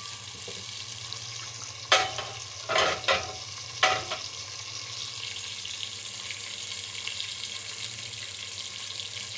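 Sliced onions sizzling steadily in hot oil in a metal pot as they fry towards brown. Between about two and four seconds in come four sharp clanks of a metal utensil, the loudest sounds.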